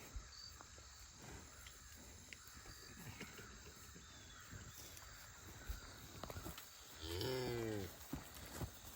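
A cow moos once, a short call falling in pitch about seven seconds in, over faint scattered knocks and shuffling.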